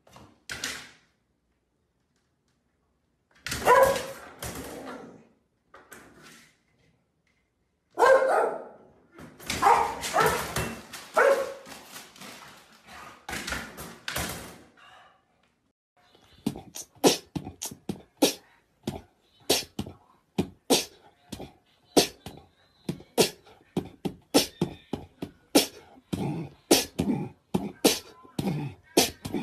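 A dog vocalising in several short bursts, then a long run of sharp knocks, about two a second.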